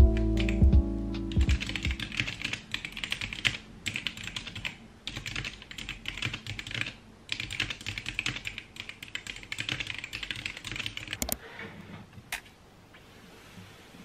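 Fast typing on a GamaKay K61 mechanical keyboard: a dense run of key clacks with short pauses, stopping about eleven seconds in, followed by a couple of single clicks.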